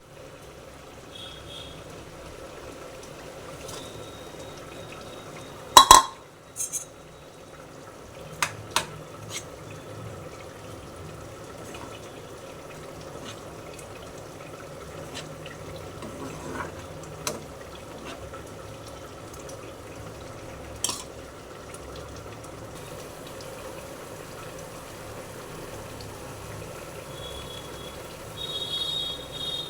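Kitchen cooking sounds: a steady low hiss with scattered sharp clinks of utensils against pots and dishes, the loudest about six seconds in, and some water or liquid sounds.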